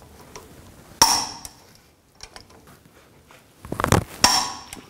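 Torque wrench clicking over twice, about three seconds apart, as the brake caliper bracket bolts reach 221 foot-pounds; each click is sharp and metallic with a short ring. A brief clatter of metal comes just before the second click.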